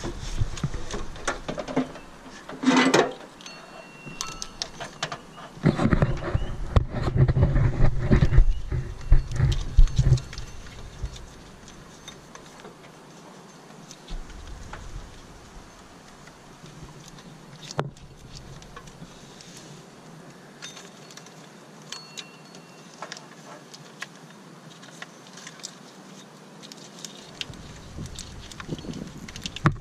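Rustling, clicks and knocks of a wiring loom being handled and fed through an engine bay past the belts, with a louder stretch of rubbing and low rumble about six to ten seconds in.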